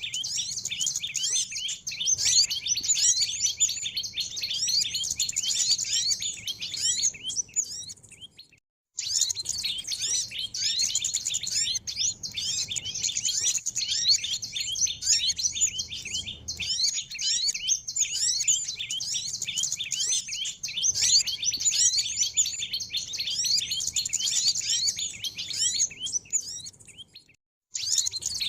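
Dense chorus of many small birds chirping and twittering rapidly in high, quick notes, a recorded lure call for small birds. It breaks off into brief silence twice, about a third of the way in and near the end, then resumes.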